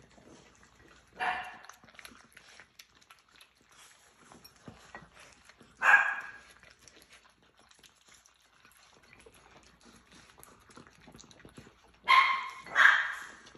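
Small dog barking four short times: once about a second in, once midway, and twice in quick succession near the end. Faint clicks of dogs eating from bowls between the barks.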